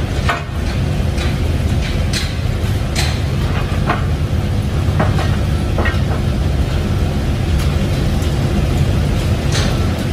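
Leaf spring production machinery running with a steady low rumble, and sharp metal clinks and knocks every second or so as hot spring leaves are moved on the chain conveyor and curved bending table.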